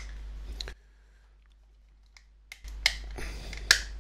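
Plastic ear-cup cover of JBL Live 650 headphones being pressed and snapped into place: a few short sharp clicks, one about half a second in and several in the last second and a half, the loudest near the end.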